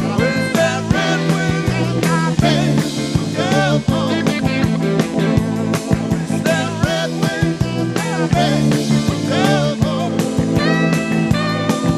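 Rock band playing an instrumental passage: a lead guitar line with bent, sliding notes over steady bass and drums.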